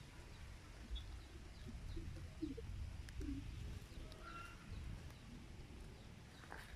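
Wind rumbling on the microphone, with a few faint, short bird calls.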